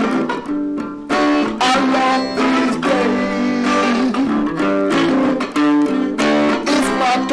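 Guitar playing a run of plucked notes and chords, with a few bent notes.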